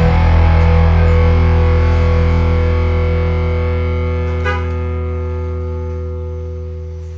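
Background music: a distorted electric guitar chord rings out and slowly fades after a burst of strumming.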